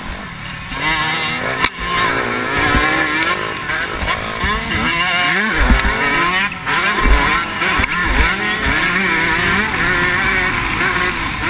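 Motocross bike engine running hard, heard from the bike's own camera, its pitch rising and falling with the throttle through the track's bumps and turns, over a steady rush of wind. A few sharp knocks stand out.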